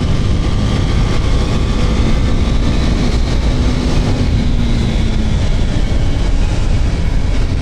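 KTM RC 390's single-cylinder engine running at speed, largely buried under steady wind rushing over the microphone.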